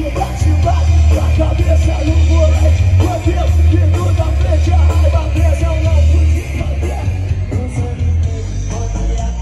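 Live music over a stage PA: a singer over a band with a heavy, steady bass, getting a little quieter about six and a half seconds in.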